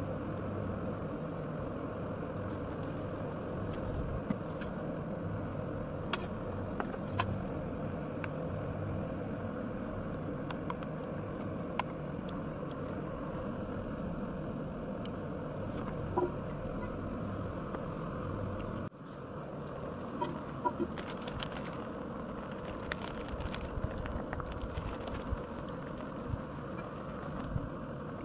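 Motorcycle running on the move, a steady engine and wind or road noise with scattered sharp ticks. The sound breaks off abruptly for a moment about two-thirds of the way through.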